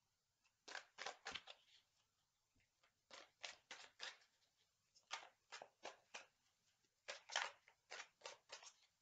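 A tarot deck shuffled by hand, giving faint quick slaps and flicks of cards in four short bursts of several strokes each, a second or so apart.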